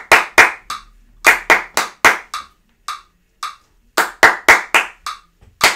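Hand claps beating out a piece's rhythm in short uneven groups, against a metronome app ticking at 110 beats per minute.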